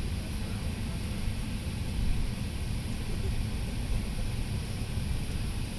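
Airbus A380 cabin noise while taxiing: a steady low rumble under an even hiss, with no single sound standing out.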